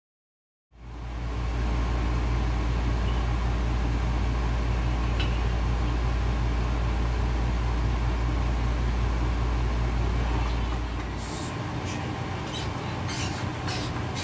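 Steady low rumble of outdoor noise on a phone microphone. It eases about eleven seconds in, and a few sharp ticks follow.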